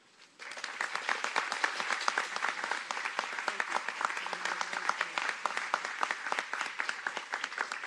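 Audience applauding, starting about half a second in and carrying on steadily.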